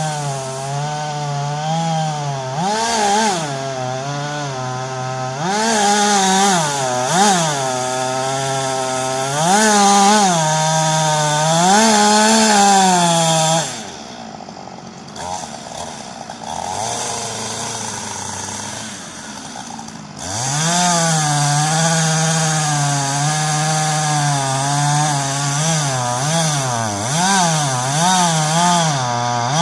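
Chainsaw cutting into a thick tree trunk, its engine pitch rising and falling again and again as the chain bites into the wood and revs free. About halfway through it drops to a quieter, lower note for several seconds, then revs up and cuts again.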